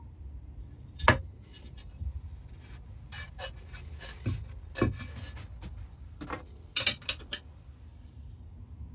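Irregular light clicks and metallic clinks as a bolt with locking nuts and a small round reset paddle are handled and adjusted on an aluminium angle leg. The sharpest knocks come about a second in, near five seconds and in a quick cluster around seven seconds.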